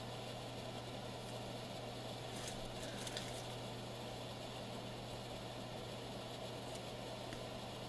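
Steady low hum over a soft hiss, with a few faint ticks about two to three seconds in.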